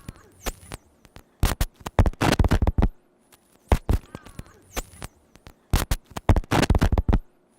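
Small hard wheels clattering and scraping over pavement: irregular sharp knocks and short rattling runs with quiet gaps between, typical of a kick scooter rolling over sidewalk joints.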